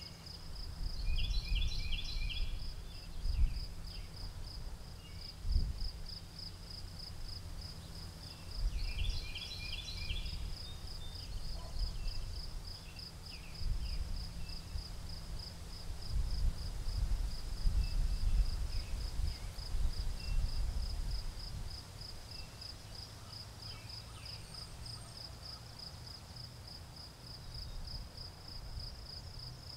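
Crickets chirping in a steady rapid pulse throughout, with a bird calling twice in short bursts of a few quick notes, about a second in and again near ten seconds. Under them, a low rumble of wind on the microphone rises and falls in gusts and is the loudest sound.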